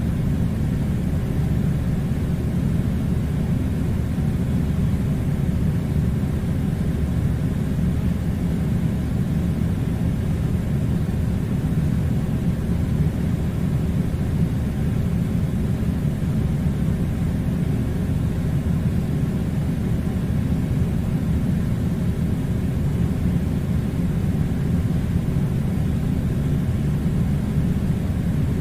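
Air conditioner running: a steady low rumbling hum with a hiss of blown air, unchanging throughout.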